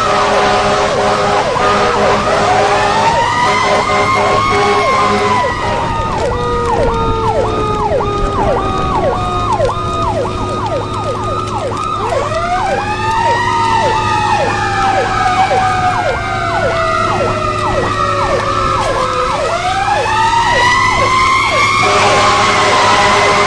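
Fire apparatus sirens sounding together: a slow wail that rises and falls over several seconds, twice, layered with a fast yelp repeating about twice a second, over a steady low rumble.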